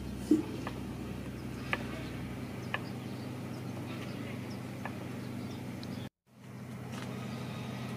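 Knife chopping meat on a wooden chopping board: scattered sharp taps of the blade striking the board, with a louder knock near the start, over a steady low hum. The sound cuts out for a moment about six seconds in.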